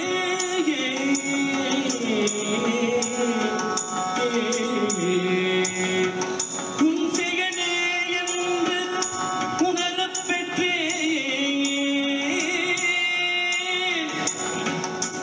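Indian devotional music: a melody of held and gliding notes over a steady jingling beat.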